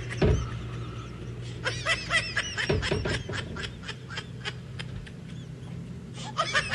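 Edited-in comic music or sound effect: runs of short, high staccato notes, about a second and a half in and again near the end, over a low steady hum.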